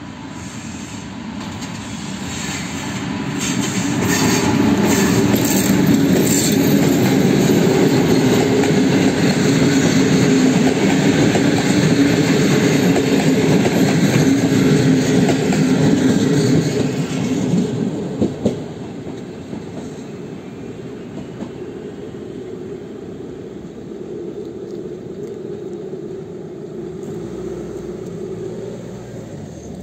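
A class 754 diesel-electric locomotive hauling a passenger train past: it grows louder over the first few seconds as it approaches, then the engine and the coaches' wheels on the rails stay loud for over ten seconds. Around 17 seconds the sound drops away with a couple of sharp clicks, leaving a fainter low rumble as the train recedes.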